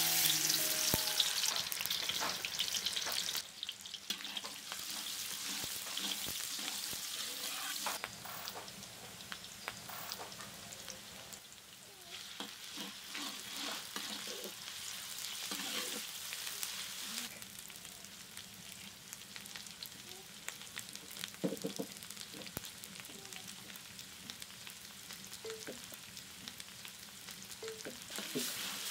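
Sliced red onions sizzling as they fry in hot oil in a large metal karahi, with a metal spatula scraping and stirring them now and then. The sizzle is loudest for the first few seconds, just after the onions go into the oil, then settles lower.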